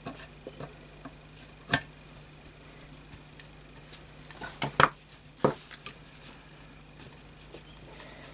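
Small metal clicks and taps as the side cover screws of a Setra pump-up air rifle's receiver are undone with a small screwdriver and the cover is worked loose by hand, with a few sharper clicks about two seconds in and around five seconds in.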